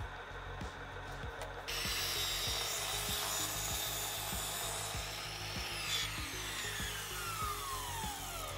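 Mitre saw running and cutting through a small wooden block, its noise starting abruptly about two seconds in; about six seconds in the motor is switched off and the blade spins down with a falling whine. Background music plays underneath.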